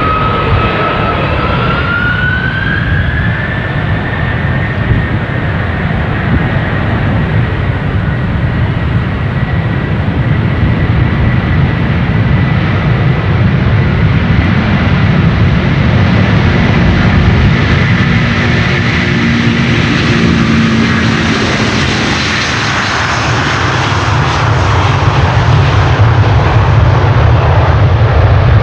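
Jet airliner engines running: a whine rises in pitch over the first few seconds and then holds steady, over a deep rumble that grows louder near the end.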